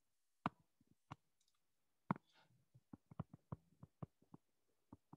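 Faint, sharp clicks of a stylus tapping on a tablet screen during handwriting: a few spread-out taps, then a quicker irregular run of about ten in the second half.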